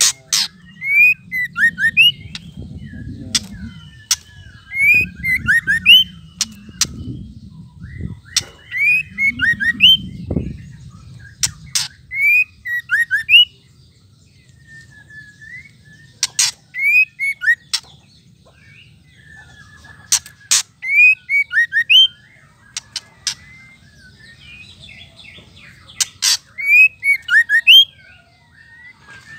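White-rumped shama calling in repeated short phrases: a sharp click followed by a few quick, downward-slurred whistled notes, every second or two, with pauses of a couple of seconds around the middle and again later. These are the chattering 'ketrekan' calls used to rouse male shamas into song. A low rumble sits under the first third.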